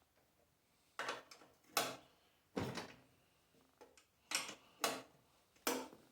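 Six sharp knocks and clatters at uneven intervals, from hand tools or parts being handled while working on a snowblower.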